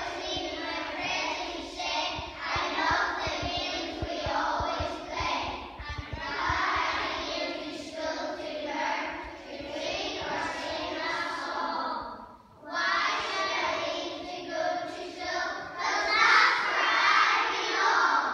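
A group of young children singing together, an action song. There is a short break about twelve seconds in, then the singing resumes.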